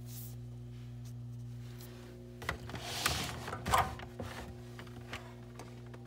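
Cardboard drink-pack box being shifted on a refrigerator shelf: a cluster of rubbing, scraping and clicks, loudest about two thirds of the way in, with a few lighter knocks after. A steady low hum runs underneath.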